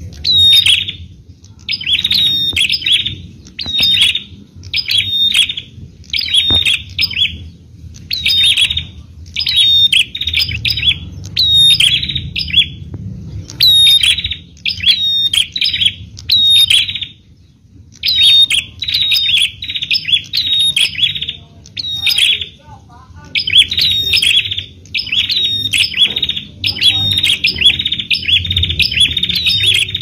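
Bar-winged prinia (prenjak) singing: loud, rapid chirping phrases repeated about once or twice a second, with a couple of short breaks a little past halfway, over a faint low rumble.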